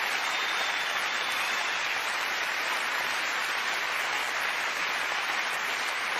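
Large theatre audience applauding, a steady even clapping that holds throughout.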